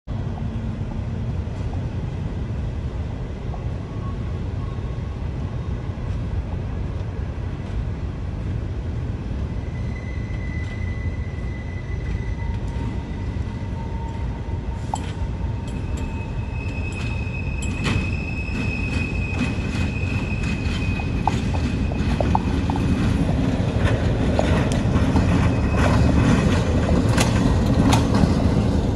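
Small diesel switcher locomotive rumbling steadily as it moves along yard track, growing louder as it comes near. Its wheels squeal in thin high tones a few times and click and clank over the rails during the second half.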